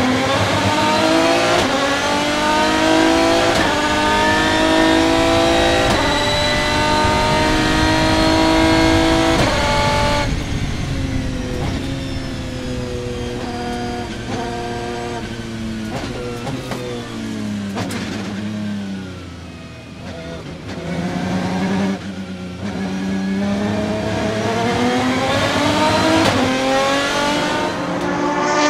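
Aston Martin DBR9's 6.0-litre V12 racing engine at full throttle, revving up and upshifting through several gears. About ten seconds in it eases off and drops down through the gears, then pulls hard through the gears again.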